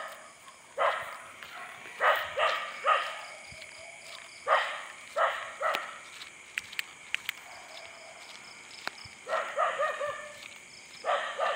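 A dog barking repeatedly: short separate barks, some in quick groups of two or three. A few sharp clicks come midway.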